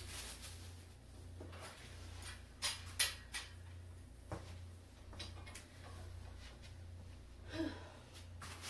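White metal folding shelf with wire shelf panels being handled and unfolded: a few sharp clicks and knocks of the metal frame about three to four seconds in. A steady low hum runs underneath.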